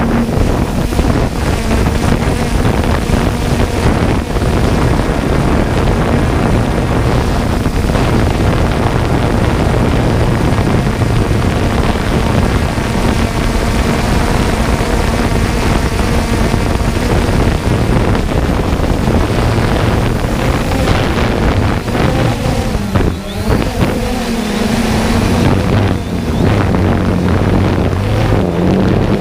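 3DR Solo quadcopter's motors and propellers whirring steadily, picked up by the camera on the drone itself and mixed with heavy wind noise on the microphone. About two-thirds of the way through, the motor pitch wavers and shifts as the drone manoeuvres.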